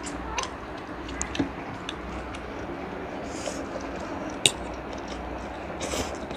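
Eating at a shared plate: scattered sharp clinks of a metal fork against a plate, the loudest a little after four seconds in, with a couple of short slurps as spicy instant noodles are sucked up.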